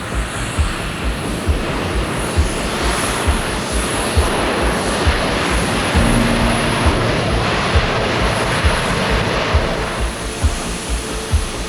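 Jet airliner engines giving a loud rushing roar that swells through the middle, under background music with a steady low beat about twice a second.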